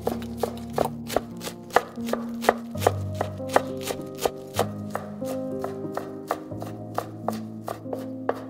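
A kitchen knife chopping food on a cutting board: a run of sharp chops, about three to four a second, some harder than others.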